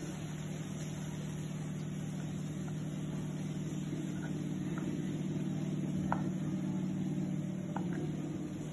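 A steady low motor hum with a few even tones, swelling slightly and easing off near the end, with a couple of faint clicks.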